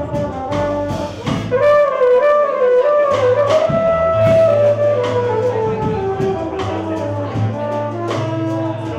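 Live band playing jazz: a valved brass horn carries the melody over bass and drums, with a long held note in the middle followed by a falling run.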